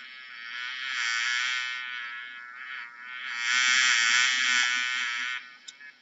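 A bee buzzing in flight. The buzz swells and fades as it comes and goes: one pass, a brief dip, a louder second pass, then it falls away near the end.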